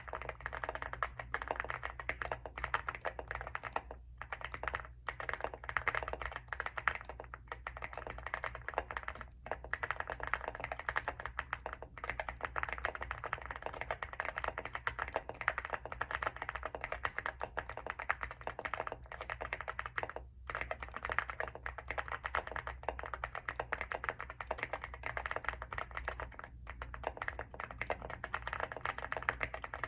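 Continuous fast typing on a mechanical keyboard, a Leobog Hi75 with stock WS Morandi switches, PBT MDA keycaps and all stock foams. The keystrokes come in a dense stream with only a few brief pauses.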